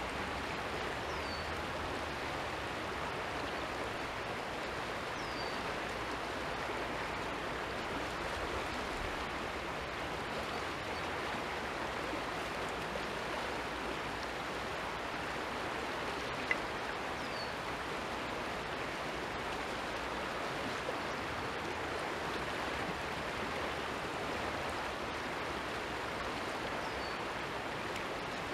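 Steady rushing of a creek's running water, with a few faint high chirps and a single sharp click about halfway through.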